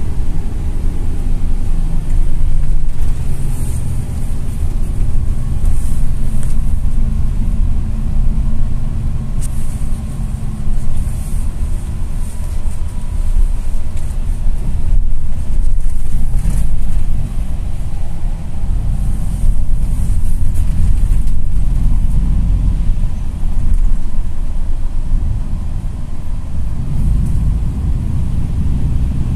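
Golden Dragon coach bus heard from inside the passenger cabin while under way: a steady low rumble of engine and road noise.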